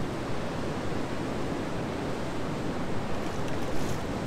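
Steady rushing noise of wind and river water, with no distinct event standing out.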